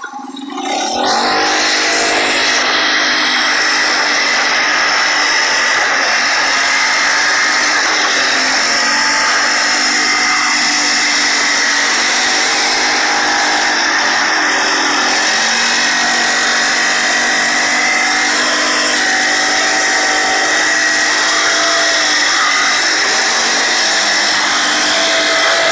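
Four-stroke ATV engine running loud and steady under throttle while the quad is driven at speed, its pitch holding fairly level with small shifts now and then. It comes in about a second in, after a quieter moment.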